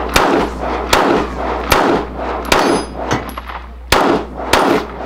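Glock 25 pistol in .380 ACP fired six times, each shot sharp with a short echo. The first four come roughly three-quarters of a second apart, then a longer pause and two more quickly near the end.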